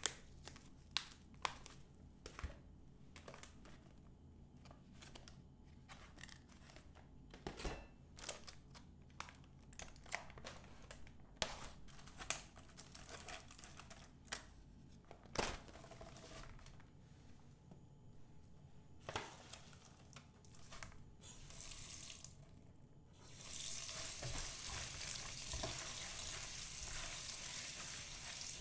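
Scattered clicks and knocks of kitchen work. About 23 seconds in, food goes into a hot pan and starts frying with a steady, loud sizzle.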